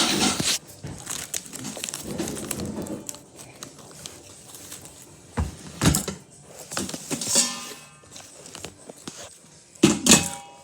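Kitchen handling sounds: scattered knocks, clicks and crinkling as cookware and food packaging are moved about, with a louder clatter near the end.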